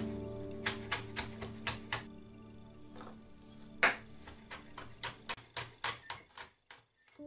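Kitchen knife chopping onion on a wooden cutting board, a run of quick knocks about four a second over soft background music. After a short pause there is one louder knock, then another run of quick knife strikes on the board as a garlic clove is sliced, fading near the end.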